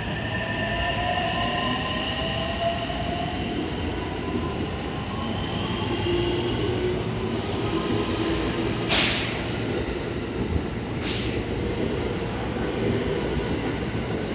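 JR West 225 series and 223 series electric multiple-unit train pulling out of the platform and gathering speed, its traction motors whining with tones that rise slowly in pitch over a steady rumble of wheels on rail. Two short bursts of hiss come about two seconds apart, past the middle.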